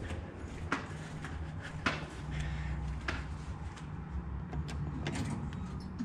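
Footsteps in a broken sandal, a sharp click or slap about once every second or so, over a steady low hum.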